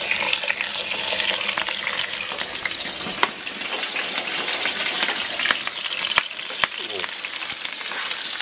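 Steak sizzling in hot oil in a frying pan, a steady hiss with sharp pops and crackles every second or so.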